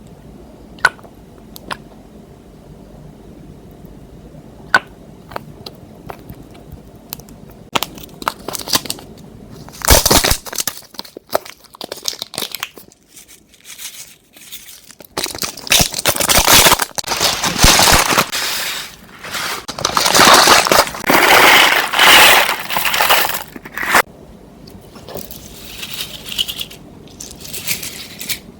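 Close-up crackling and crunching as clear slime is mixed with eyeshadow by hand. A few isolated clicks come first, then dense bursts of crackle set in about a third of the way through and are heaviest in the second half.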